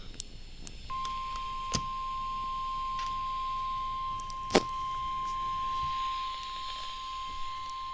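NOAA Weather Radio 1050 Hz warning alarm tone, one steady pitch that comes on about a second in and holds, signalling that a warning message follows. Two sharp clicks cut through it at about two and about four and a half seconds in; the second is the loudest sound.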